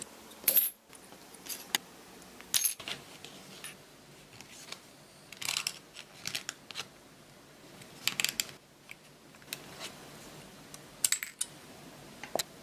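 A thin metal strip being cut with scissors and then bent by hand into a cookie cutter: scattered sharp metallic clicks and crinkles, singly and in short clusters, the loudest a snip about half a second in.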